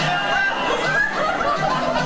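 People laughing and talking over each other, with music playing underneath.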